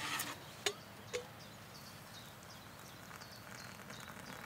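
Two light metallic clicks from a stainless steel camping kettle's lid being handled, within the first second or so, then quiet open-air background with faint, repeated high chirps.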